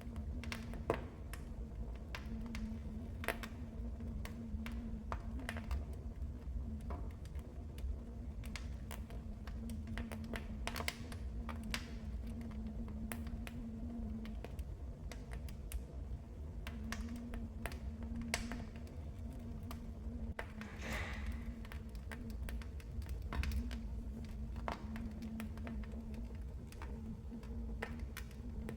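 Wood fire crackling in a fireplace: irregular sharp pops and snaps, some louder than others, over a low steady rumble of the burning.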